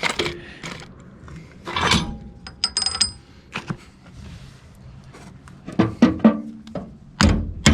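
Metal tools and parts being handled: scattered knocks and clatter, with one clear ringing metallic clink about two and a half seconds in and a few sharper knocks near the end.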